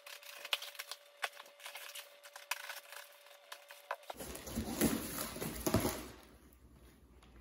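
Large cardboard shipping box being handled: a run of small clicks and taps on the cardboard, then about four seconds in louder cardboard scraping and rustling as the box is tipped and its lid pulled open.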